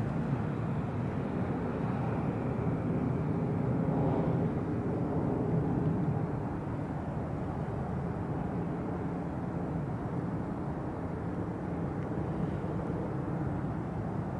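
Steady low rumble of distant engine noise, a little louder in the first six seconds before settling.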